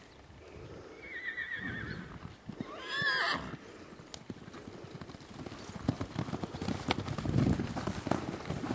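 A horse whinnies with a quavering call, loudest about three seconds in, and then hoofbeats of several horses cantering and galloping over grass and mud follow as dull thuds.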